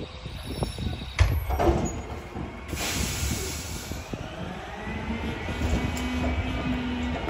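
Front-load garbage truck lifting a steel dumpster on its forks: a loud clank about a second in, a burst of air hiss around three seconds, then the engine and hydraulics run up with a rising whine as the bin goes up.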